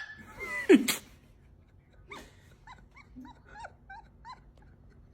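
Strange, dog-like hiccups with a whimpering sound. A sharp high squeal and a falling yelp come in the first second, then a run of about eight short high squeaks, three or four a second.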